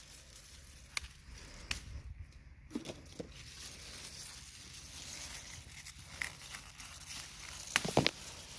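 Peppers being snapped off the plant by hand: several sharp snaps of the stems, the loudest near the end, with leaves rustling in between.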